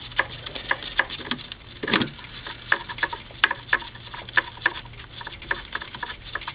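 Small metal bolts clicking and rattling inside a small plastic container as it is handled: light, irregular clicks, several a second, with one duller knock about two seconds in. A faint steady low hum runs underneath.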